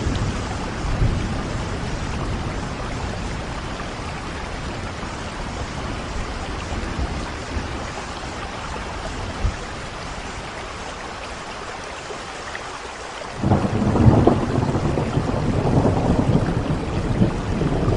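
Thunderstorm: steady rain hissing throughout, with low thunder rumbling at first and dying away, then a loud roll of thunder breaking in suddenly about three quarters of the way through and rumbling on.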